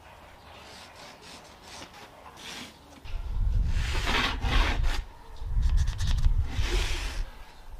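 Rubbing and scraping on carpet as a person on hands and knees marks around a flat board laid on it, with louder swishes about four seconds in and near the end. A low rumble starts about three seconds in and is the loudest sound.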